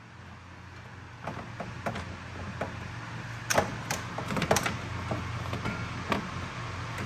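Plastic radiator fan shroud being unclipped and pulled free by hand: a string of sharp plastic clicks and knocks, the loudest a cluster from about three and a half to four and a half seconds in, over a steady low hum.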